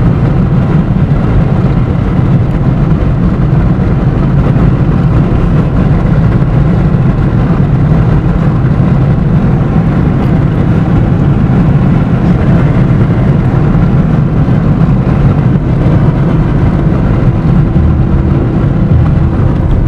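Steady, loud rumble of a car driving on an asphalt road: engine and road noise.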